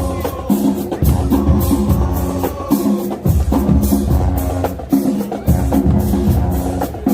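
High school marching band playing loud, with a pounding drum beat over low pitched notes that break off and come back every second or so.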